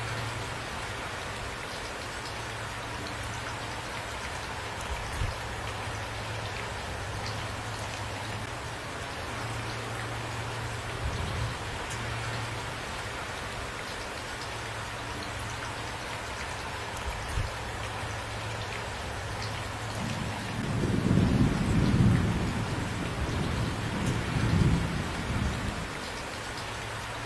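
Steady rain falling, with a low rumble of thunder rolling in about twenty seconds in, swelling twice and then fading away.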